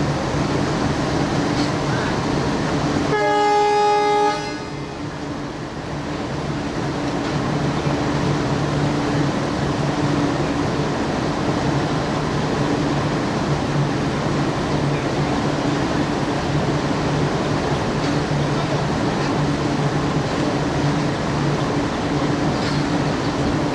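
A train horn sounds one blast of about a second, roughly three seconds in. It plays over a steady low diesel engine hum and the bustle of a crowd of passengers on a railway platform.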